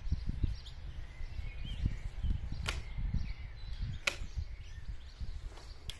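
Low, uneven wind rumble on the microphone, broken by three sharp clicks, with faint bird chirps in the background.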